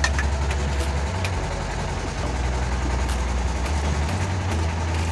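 Diesel engine idling with a steady low rumble, its note shifting slightly a few times, running after a repair of its fuel injection pump.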